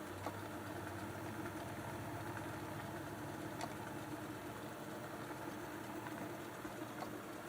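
Sanyo STD-1410 cassette deck's tape transport running: a steady low motor hum that starts with a click, with a few faint clicks from the mechanism about halfway through and near the end.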